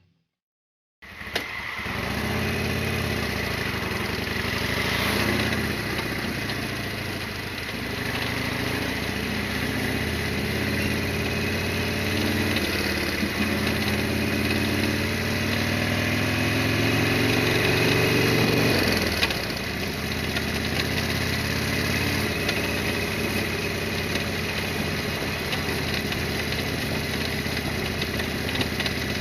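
Harley-Davidson Sportster XL1200R's air-cooled 1200 cc V-twin engine running. About eight seconds in, its pitch starts to climb slowly, then drops suddenly near the two-thirds mark.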